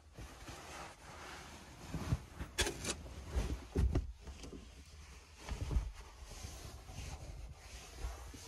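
Rustling and a few soft thumps of a thin mattress pad being spread out and smoothed by hand over a wooden bed board.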